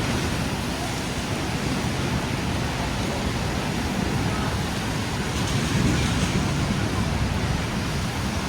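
Steady hiss of heavy rain on a city street, with the low rumble of traffic underneath and a brief swell about six seconds in.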